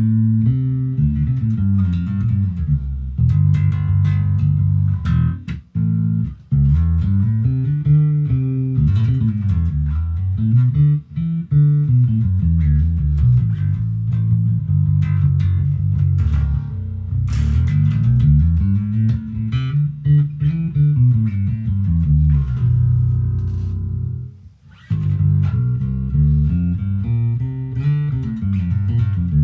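Squier six-string electric bass played fingerstyle, with runs of notes that climb and fall in arcs. There are short breaks about six, eleven and twenty-four seconds in.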